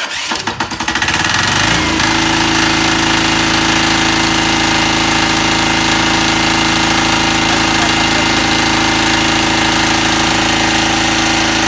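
Portable 5 kVA diesel generator set starting: the engine catches at once, picks up speed over about two seconds, then runs at a steady, even speed.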